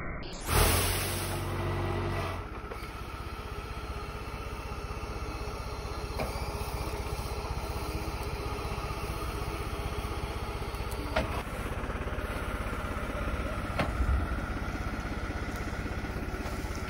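Hydraulic olive-tree trunk shaker and the engine driving it: a loud low shaking for the first two seconds, then the engine running steadily, with two short knocks in the last third.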